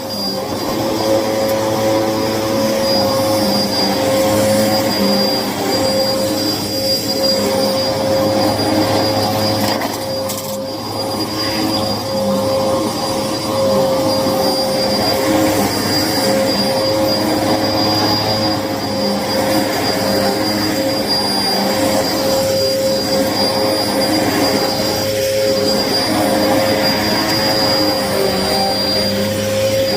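Hoover vacuum cleaner running steadily with a constant motor whine, dipping slightly about a third of the way through. The vacuum is clogged, by the owner's account.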